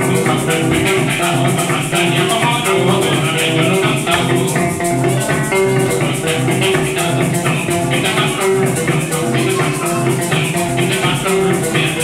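Venezuelan joropo tuyero played on a harp (arpa central) with maracas shaking a fast, steady rhythm over the plucked melody and bass.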